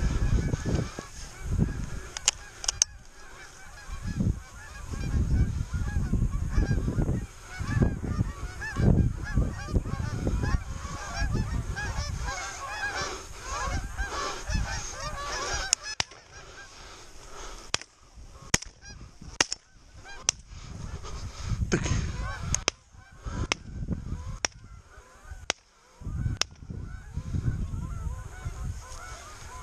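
A flock of Canada geese honking, a dense overlapping clamour that thins to scattered calls after about sixteen seconds. Wind rumbles on the microphone, and a run of sharp clicks comes in the second half.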